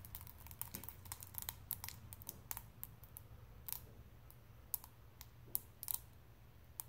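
Wet silica-gel desiccant beads in a plastic cup faintly crackling and popping, several irregular clicks a second: the beads cracking and breaking apart as they take up water.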